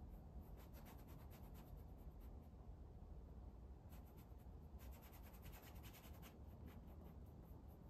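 Faint scratching of a fine paintbrush dabbing oil paint in quick short strokes on gesso-primed canvas. It comes in two runs, one about a second in and a longer one from about four to six seconds in, over a low steady room hum.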